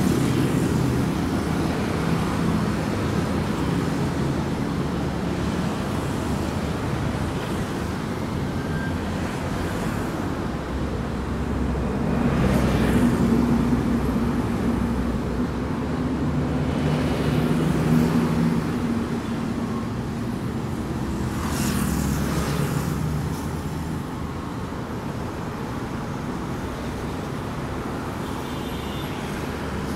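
City road traffic: motor vehicles running steadily with a continuous low engine drone, and several vehicles passing close by, one after another through the middle of the stretch.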